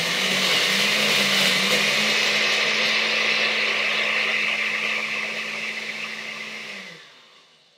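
Countertop blender running at full speed, crushing ice and strawberries in juice. Its motor hum climbs a little in pitch in the first two seconds, holds steady, then the blender is switched off near the end and spins down.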